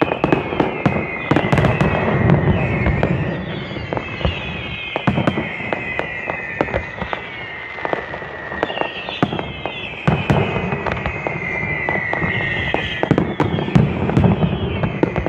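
Fireworks display: a dense, continuous barrage of bangs and crackles over a low rumble, with many overlapping whistling fireworks whose whistles fall in pitch.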